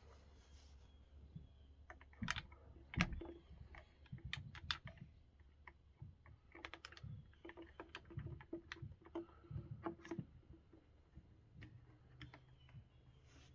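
Irregular light clicks and taps, with two louder knocks about two and three seconds in: a wire hook scraping and knocking inside a chainsaw's plastic fuel tank while fishing out the fuel filter.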